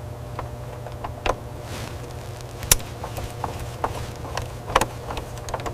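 Work sounds of metal parts being fitted: a steady low machine hum with scattered sharp clicks and knocks, the loudest about two and three-quarter seconds in and another just before five seconds.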